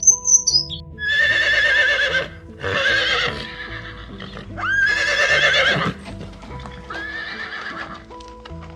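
Horse whinnying four times, each call about a second long with a quavering pitch, over background music.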